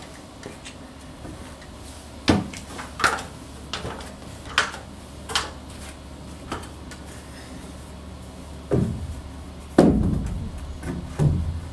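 A run of short, sharp wooden knocks, roughly one a second, then three heavier thumps near the end: wood and tools knocking against the wooden roof trusses and wall framing as they are worked on.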